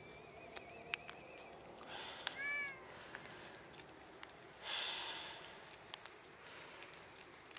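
A cat licking paste from a squeezed Churu treat tube, with small wet clicks, and a single short meow about two and a half seconds in. A wavering high call is heard in the first second and a half, and a short hissy noise burst about five seconds in is the loudest sound.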